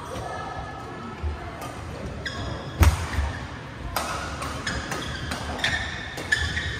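Badminton rallies in a large hall: sharp racket strikes on shuttlecocks and thuds of landing feet, the loudest about three seconds in, mixed with short squeaks of court shoes on the floor.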